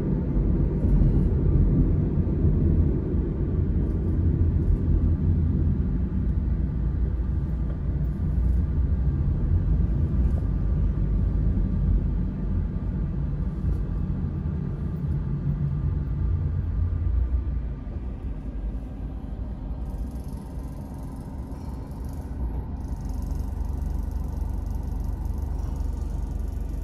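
Low, steady rumble of a car's engine and tyres while driving in city traffic. The rumble drops noticeably about two-thirds of the way through as the car slows and comes to a stop.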